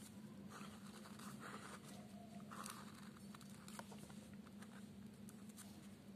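Faint scratching of a marker pen writing and drawing lines on paper, in short strokes with a few small clicks, over a low steady hum.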